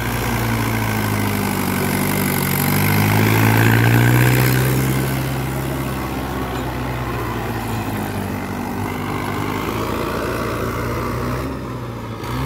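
Mahindra 575 tractor's diesel engine running steadily under load, driving a rotavator that churns the soil. The sound grows louder a few seconds in and then settles back to a steady level.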